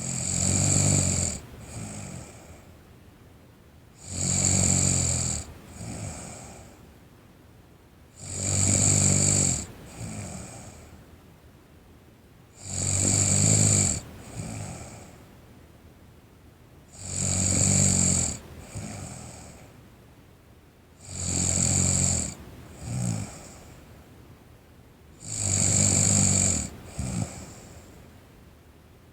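A sleeping teenage girl snoring in a slow, even rhythm: a loud snore about every four seconds, each followed about a second later by a shorter, softer one, seven times over.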